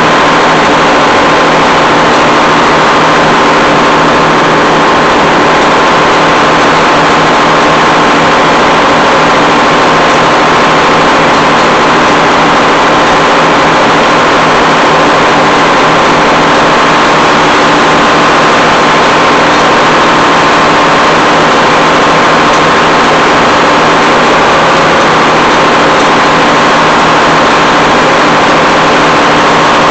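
Detroit Diesel 6-71 two-stroke inline-six diesel running steadily and loudly, shortly after a cold start made without ether.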